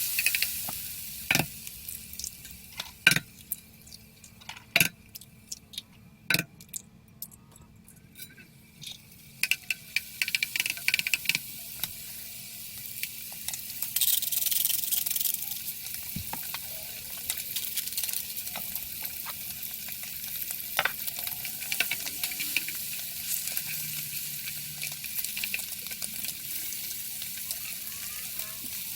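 Food frying and sizzling in a pan, with a few sharp knocks in the first several seconds. After a quieter stretch, the sizzling picks up and runs steadily.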